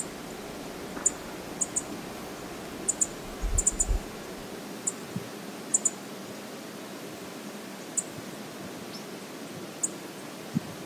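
Steady hiss of wind outdoors, with about a dozen sharp, high ticks scattered irregularly and a brief low rumble of wind on the microphone about three and a half seconds in.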